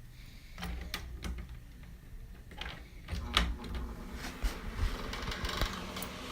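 A few clicks and knocks, then a Westpointe high-velocity fan starting up with a steady whir building from about four seconds in; the fan's bearings are bad.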